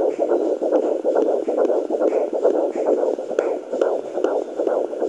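Fetal heartbeat at about 144 beats a minute, picked up by a home fetal doppler at 17 weeks of pregnancy: a fast, even pulsing through the device's speaker.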